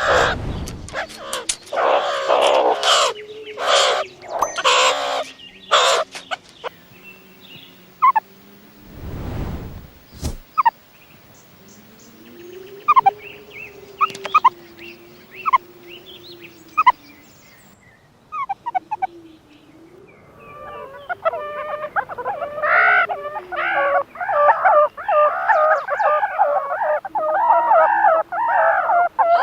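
Meerkats calling: a string of short, loud calls at the start, scattered sharp chirps in the middle, then a dense run of rapid chattering calls in the last third. A brief rushing noise comes about nine seconds in.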